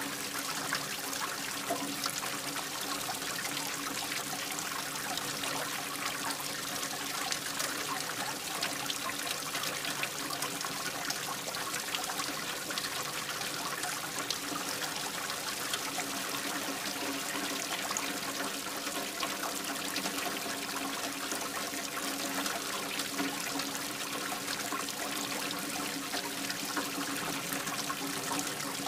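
Running water: a steady, unbroken rush and trickle.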